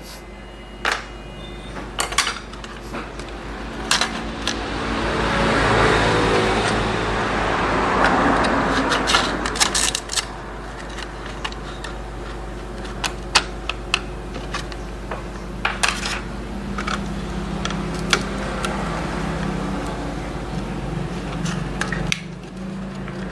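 Light metallic clicks and clatter of a laptop heatsink and small parts being handled and cleaned, with a longer rushing noise that swells and fades from about four to eleven seconds in.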